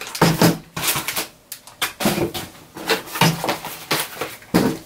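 Inflatable plastic air-column packaging crinkling and a cardboard box scraping and knocking as the box is pulled out of the sleeve and handled. Irregular crackles and knocks.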